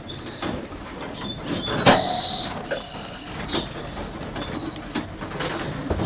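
Caged canaries giving short, high chirps and whistles, with wing flutters and small clicks from the cage, and one sharp knock about two seconds in.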